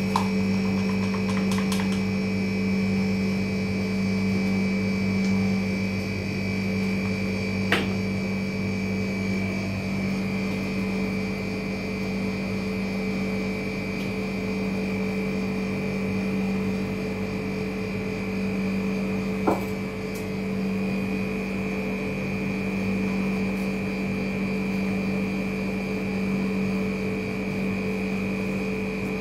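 Steady machine hum: a low drone with a thin high whine above it, unchanging throughout. Three short clicks stand out, one at the start, one about 8 seconds in and one about 20 seconds in.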